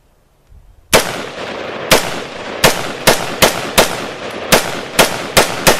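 A series of about ten loud, sharp bangs at uneven intervals, starting about a second in, over a steady hiss.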